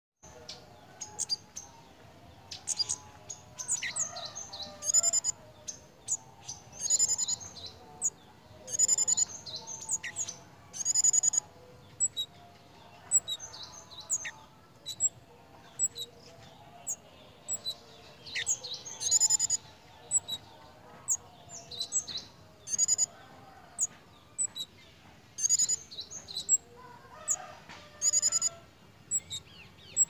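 A caged male kemade (cigen) songbird in breeding condition, calling over and over in short, high chirping phrases about every second or two.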